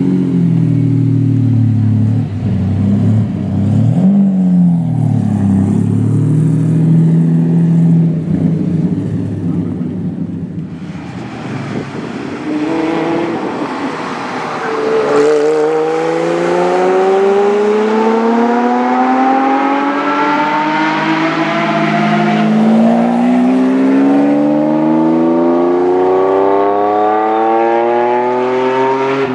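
Lamborghini Diablo VT's V12 with a modified, really loud exhaust: revved in short blips while standing still, then, after about ten seconds, accelerating on track with the engine note climbing steadily through the last fifteen seconds.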